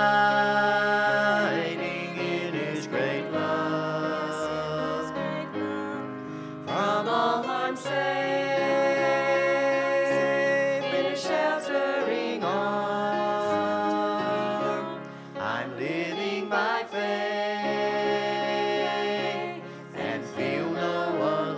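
A small mixed group of men's and women's voices singing a gospel hymn together in long held notes, over instrumental accompaniment.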